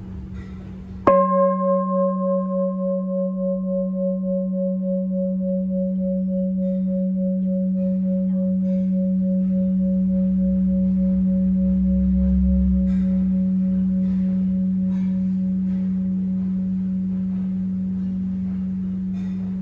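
A 40 cm Huế-style gia trì bowl bell of cast copper and tin, struck once with its mallet about a second in. It rings on in a long hum: a deep steady tone under a higher tone that pulses and wavers. Its brighter upper tones die away within a few seconds, and the bell is still ringing near the end.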